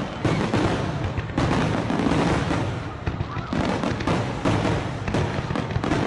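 Fireworks display going off: a dense, continuous run of bangs and crackles.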